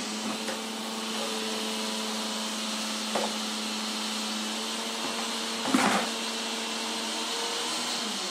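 A steady machine hum holding one pitch, which stops near the end. A light knock comes about three seconds in, and a louder knock a little before six seconds.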